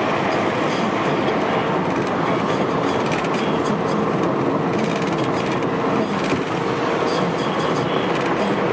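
Steady road noise inside a moving taxi's cabin at freeway speed: tyres and engine running with a faint steady hum and scattered light clicks and rattles.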